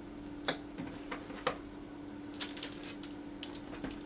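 Hands pressing and pinching soft yeast dough balls shut around their cheese filling on a wooden board, giving scattered small taps and clicks, the sharpest about half a second and a second and a half in, over a faint steady hum.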